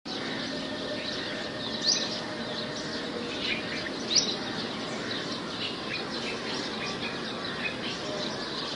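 Birds chirping over a steady outdoor background hiss, with two louder rising chirps about two seconds in and again about four seconds in, and many fainter short chirps throughout.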